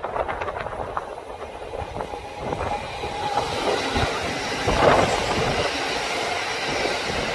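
Kintetsu electric train arriving and passing: the running noise of wheels on rail builds from about two and a half seconds in, with a couple of heavy thumps around four and five seconds in, then holds steady and loud.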